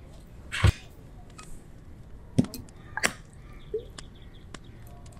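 A wooden spoon knocking and tapping against a glazed ceramic bowl as mayonnaise and sweet chili sauce are spooned in. There are about five separate sharp taps, and the loudest is a low knock about half a second in.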